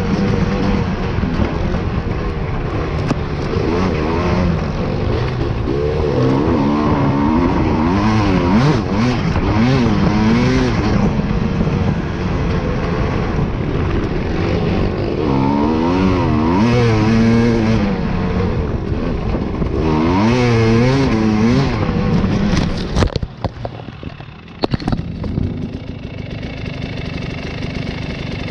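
Off-road motorcycle engine revving up and down with the throttle along a dirt trail, over a rush of wind and tyre noise. About 23 seconds in, a few sharp crashing impacts come as the bike goes end over. The engine then runs on at a steady, lower idle.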